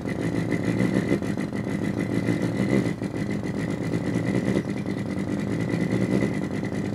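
Artificial engine sound from two function generators, one sweeping (wobbling) the other, played through a small amplifier and speaker. It is a steady, fast-pulsing low buzz that runs smoothly like an idling engine, with a faint steady high whistle above it.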